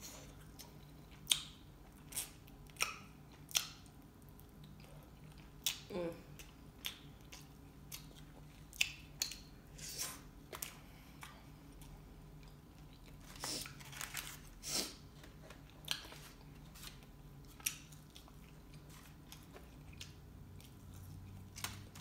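Close-up mouth sounds of a person eating chicken wings: chewing and biting, with short wet smacks and clicks coming irregularly, about one every second or two.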